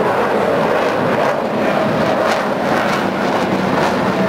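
Military fighter jet flying past at high power: a loud, steady jet roar with a few sharp crackles in it.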